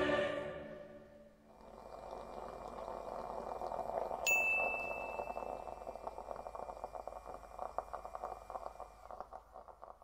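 Music fading out, then a moka pot gurgling and sputtering as the coffee comes up, with a single bright ding about four seconds in that rings on for several seconds.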